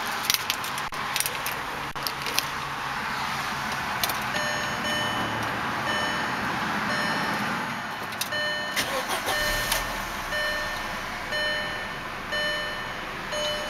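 Keys clicking and jangling at the ignition of a 2005 Volkswagen Passat, then a dashboard warning chime beeping over and over while the engine cranks and catches easily, settling to idle.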